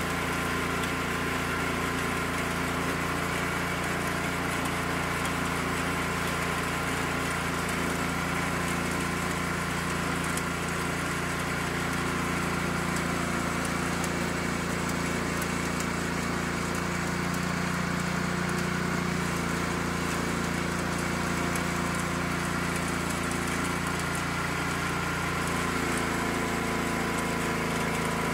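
Allis-Chalmers 410 garden tractor's engine running steadily under load while its rear-mounted rototiller works the soil. The engine note shifts slightly near the end.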